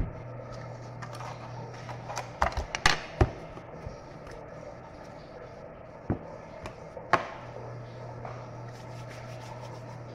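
Scattered light knocks and clicks of bowls and utensils being handled, a cluster of them a couple of seconds in and two more singly later, over a steady low hum.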